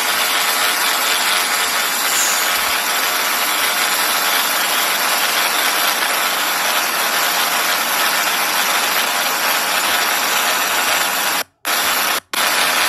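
Steady, loud engine and rotor noise of a helicopter, recorded aboard. It cuts out for a moment twice near the end.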